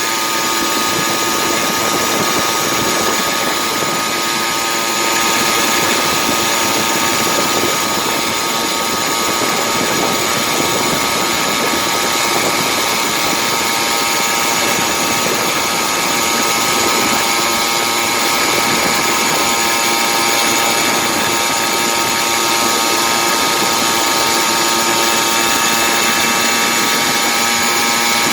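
Two-stroke chainsaw engine of a motorized bicycle running steadily at a cruising speed, its pitch holding level.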